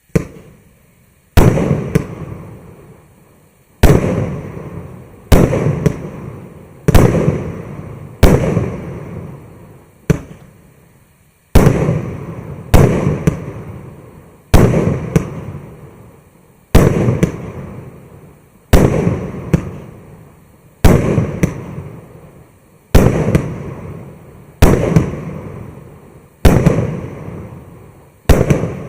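A 25-shot, 1.2-inch fireworks cake (SPEED FIREWORKS MC098) firing shot after shot, about one every one to two seconds. Each shot is a sharp bang that fades into a rumble and crackle.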